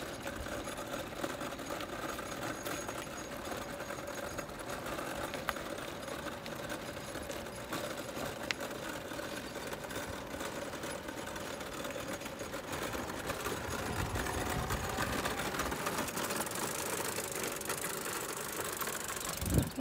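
Small four-wheel mobility scooter's electric drive motor whining steadily as it drives along a tarmac road, with tyre noise. A single thump near the end.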